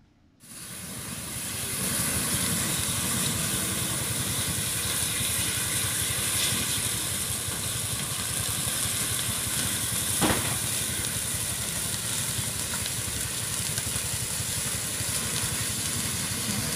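A large building fire burning steadily, with a dense crackling and a hiss over a low rumble; one sharp crack pops out about ten seconds in.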